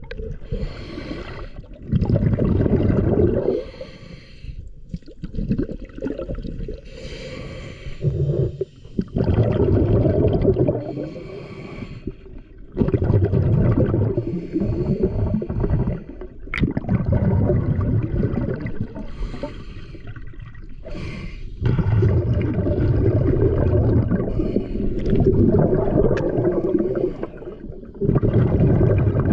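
A scuba diver breathing through a regulator, heard underwater: loud bubbling exhalations in surges of a second or two, about five of them at uneven intervals, with quieter gurgling between.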